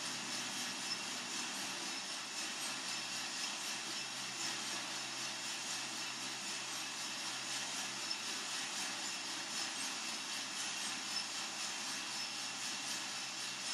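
Coffee-Tech FZ-94 drum coffee roaster running mid-roast: a steady rushing whoosh with a low hum under it, unchanging throughout.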